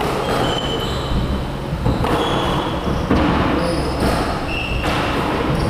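Squash rally: the ball cracking off racquets and the court walls about once a second, with short high squeaks of court shoes on the wooden floor between the hits.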